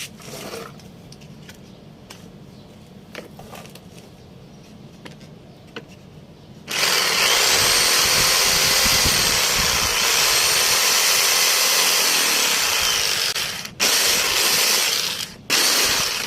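A few light knocks and clicks of handling, then about seven seconds in an electric power tool starts and runs loudly, cutting scrap wood, its motor pitch wandering under load. Near the end it stops briefly twice and starts again.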